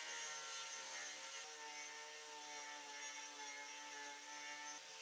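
Angle grinder fitted with an Arbortech TURBO Plane carving disc, running and shaping walnut: a faint, steady whirring hum with a light hiss.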